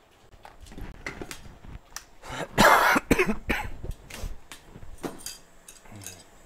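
A man coughing in a short fit of several coughs, the loudest about two and a half seconds in.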